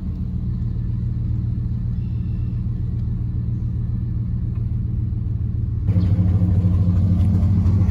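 Chevrolet pickup truck running, heard from inside the cab as a steady low rumble while driving. About six seconds in it becomes a louder, steadier engine hum heard from outside the truck, by the tailgate.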